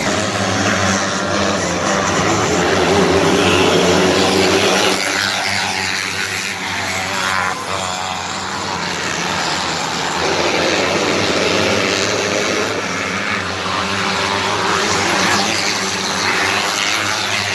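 A field of small winged dirt-track race cars lapping the oval, several engines running at high revs together, their pitch rising and falling as cars pass by.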